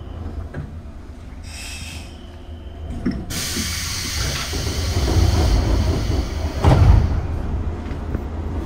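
Pneumatic doors of a JR 103 series electric train closing at a station stop: a sudden loud air hiss starts about three seconds in, and the doors shut with a heavy thump near the end of the hiss.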